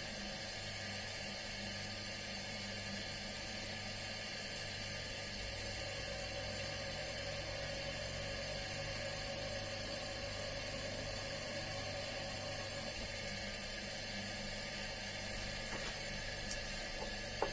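Electric drill running steadily as it drills out a rivet of a Victorinox 91 mm pocket knife, with a couple of light clicks near the end.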